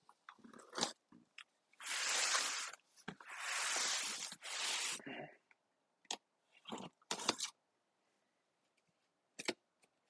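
Pocket knife blade slicing through packing tape on a cardboard box: three long scratchy rips between about two and five seconds in, with a few short taps and clicks of the knife and hands on the cardboard before and after.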